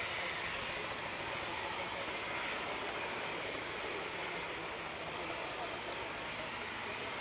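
VL Viima II biplane's seven-cylinder Siemens-Halske Sh 14A radial engine running steadily in flight.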